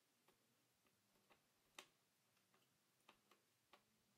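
Near silence broken by a handful of faint, irregular small clicks and taps from hands handling the laptop's bare LCD panel and its corner mounting hardware, the sharpest a little under two seconds in.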